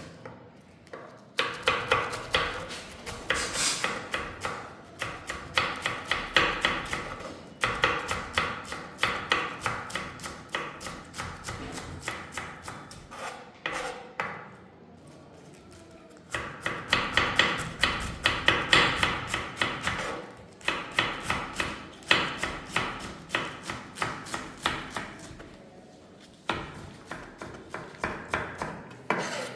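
A kitchen knife rapidly chopping food on a cutting board, in fast, even strokes. The chopping comes in runs of several seconds with short pauses between them.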